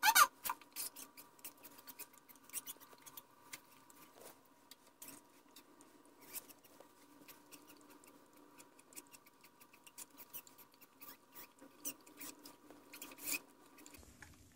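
Faint scattered small clicks and rubs of handling, over a steady faint hum, with a short squeak falling in pitch right at the start.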